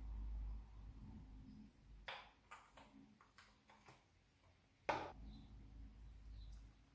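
Faint handling sounds of a plastic moisturizer tube and hands: several light clicks and taps, then one sharper click about five seconds in, over a low handling rumble.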